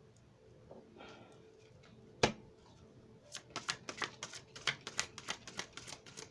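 A deck of tarot cards being shuffled by hand: a single sharp tap about two seconds in, then from about three seconds in a quick run of card clicks, several a second.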